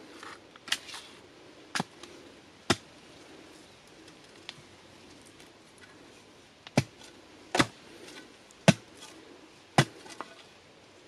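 Sharp chopping strikes of a long-handled tool into the base of a bamboo clump: three blows in the first three seconds, then four more in a second run a few seconds later.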